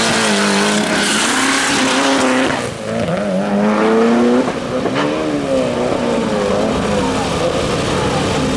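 Mitsubishi Lancer Evolution's turbocharged four-cylinder engine held at steady revs on the start line, then launching about two and a half seconds in and pulling away through the gears, the revs climbing and dropping with each shift.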